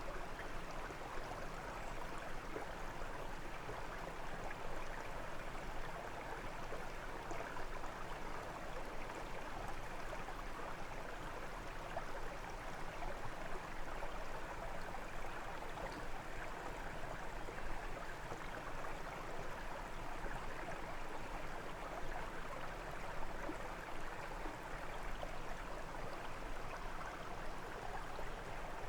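A brook flowing: a steady, even rush and babble of running water.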